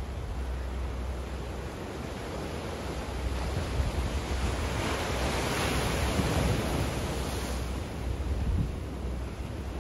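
Small waves breaking and washing against a rocky shore. The wash swells to its loudest about halfway through and then eases, over a steady low rumble of wind.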